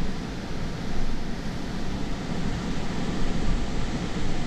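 Strong gusting wind buffeting the car and the microphone: a heavy, uneven rumble under a steady rushing hiss.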